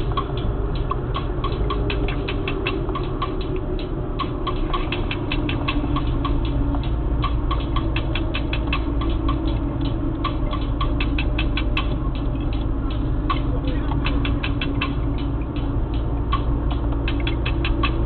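Yugo Florida 1.3 EFI's engine and road noise heard from inside the car while driving steadily: a low rumble with a slowly shifting engine tone, overlaid by rapid, irregular light clicking.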